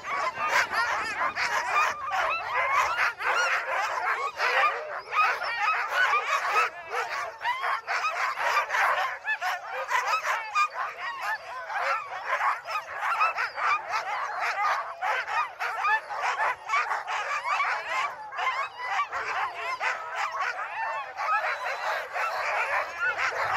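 A pack of sled dogs barking, yipping and howling together in a continuous, many-voiced clamour.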